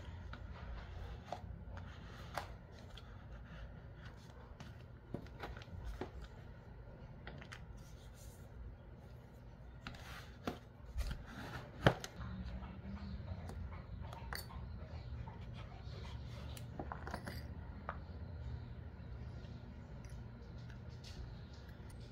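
Hands handling and smoothing paper and card, with scattered taps and clicks of small tools picked up and set down on the desk, over a low steady hum. A few sharper clicks come close together about ten to twelve seconds in.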